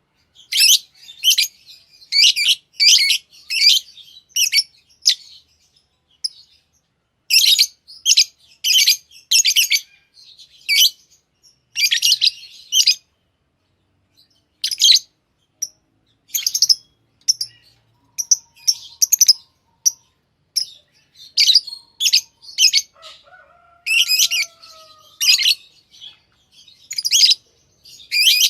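African lovebirds chirping: rapid clusters of shrill, high-pitched chirps, broken by short pauses.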